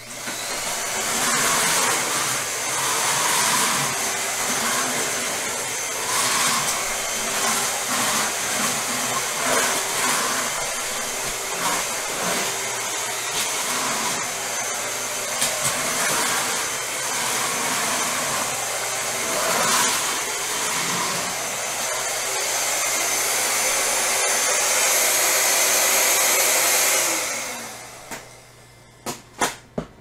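Bissell Featherweight bagless stick vacuum running on a hardwood floor, a steady motor whir whose level wavers as it is pushed around. About 27 seconds in it is switched off and the motor winds down, its pitch falling away.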